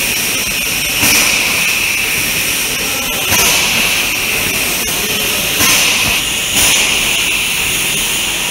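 Loud steady hiss of food-processing machinery, swelling up sharply every one to two seconds.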